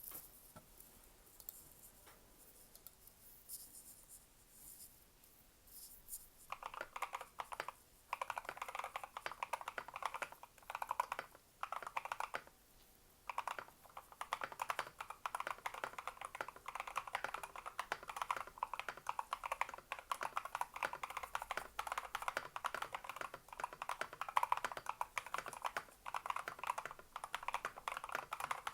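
Typing on a full-size mechanical keyboard with Ice Lemon linear switches, foam-dampened case and stock white keycaps: a fast, dense run of crisp key clacks that starts about six seconds in, broken by a few short pauses.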